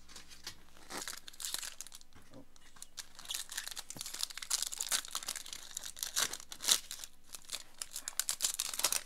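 Plastic wrapper of a Score football card pack being torn open and crinkled by hand, with a few short crinkles at first, then dense crackling from about three seconds in and one sharp crackle late on.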